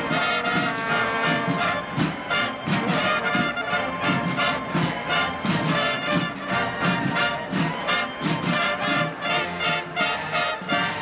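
Marching band brass playing a tune over a steady drum beat of about two strokes a second.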